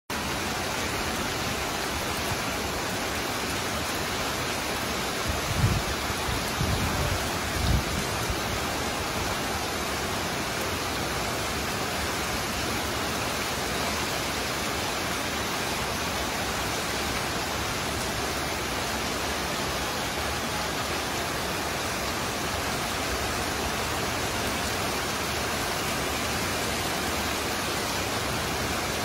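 Heavy rain falling steadily, a dense even hiss. A few low thumps between about five and eight seconds in.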